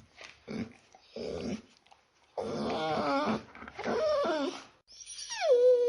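A dog whining: a few short breathy sounds, then two wavering whines, and near the end a high whine that slides down in pitch and holds.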